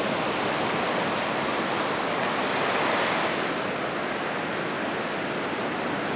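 Ocean surf breaking and washing up a sandy beach: a steady rush of waves that swells a little about halfway through.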